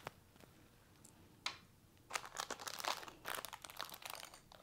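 Small clear plastic bag crinkling as it is handled, in clusters of quick crackles over the second half. A sharp click comes at the start and another about a second and a half in.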